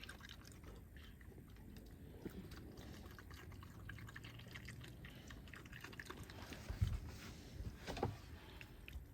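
Faint wet smacking and clicking of an animal eating, with a couple of soft thumps near the end.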